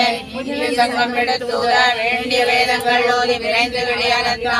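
A group of women chanting a Hindu devotional recitation (parayanam) together in unison, a continuous sung-spoken chant on steady held pitches.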